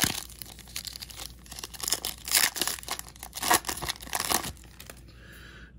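Crinkling and crackling of a trading-card pack wrapper and cards being handled: a run of sharp rustles, loudest in the middle.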